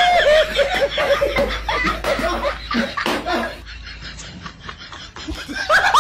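Hearty laughter in quick ha-ha bursts, dying down past the middle and picking up again near the end.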